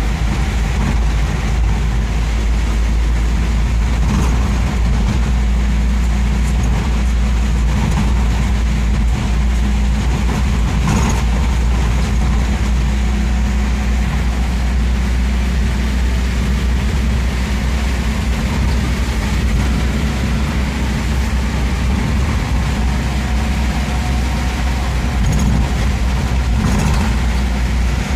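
Steady low drone of a vehicle's engine and tyres on a wet road, heard from inside the cabin while driving through heavy rain, with an even hiss of rain and spray over it.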